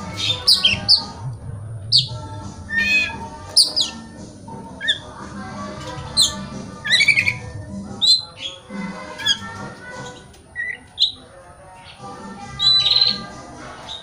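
Oriental magpie-robin singing: quick, irregular bursts of sharp whistled notes sweeping up and down, mixed with harsh squawky calls, and a buzzy rattling phrase near the end.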